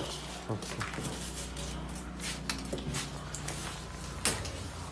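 Handling a large cardboard carton bound with plastic strapping bands: scattered light clicks and rustles, with one sharp click a little past four seconds in.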